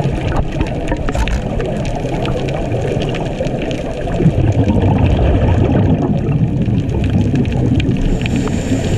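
Underwater water noise heard from just below the surface: a steady, dull rush of moving water, mostly low in pitch, dotted with many faint scattered clicks.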